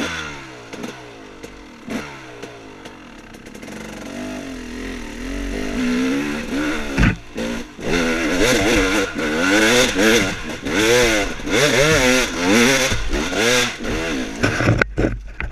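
Dirt bike engine revving up and down over and over, growing louder after the first few seconds, with a few sharp knocks.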